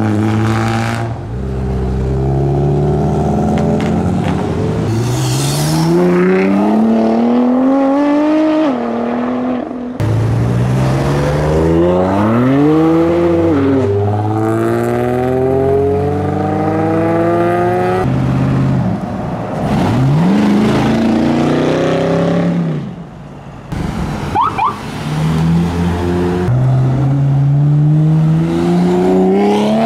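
Car engines accelerating hard one after another, each note rising steeply through the revs and dropping sharply at a gear change before climbing again.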